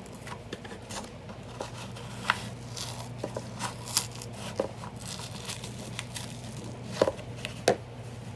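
An old book's binding and paper being cut and pulled apart by hand: paper crinkling and tearing, with a handful of sharp clicks and snaps scattered through.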